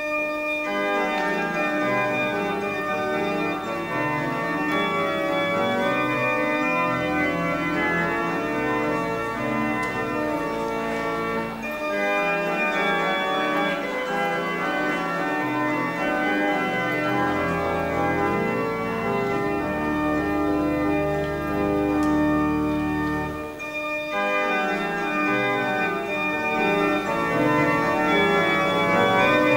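Church pipe organ playing the postlude at the close of a service: sustained full chords with long held low pedal notes.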